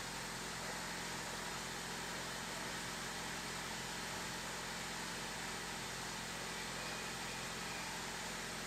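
Honda Civic engine idling steadily, heard through an exhaust with the tip removed and a muffler whose inner core is failing.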